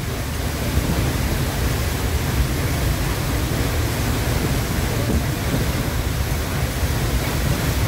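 Steady roar of a tall waterfall crashing into its plunge pool close by: a dense, even rushing noise with a heavy low rumble.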